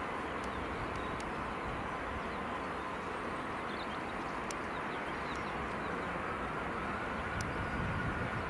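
Airbus A321 jet engines running as the airliner taxis and turns onto the runway: a steady rumble with a faint whine that rises slowly over the last few seconds.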